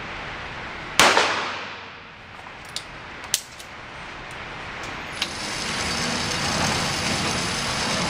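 A single revolver shot about a second in, echoing and dying away over about a second. A few faint clicks follow, then a steady noise that grows gradually louder over the last few seconds.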